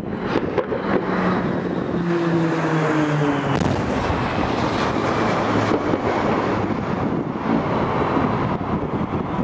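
Military aircraft formation flying over: a steady, dense rush of engine noise, with a tone that slides slowly down in pitch between about one and three seconds in.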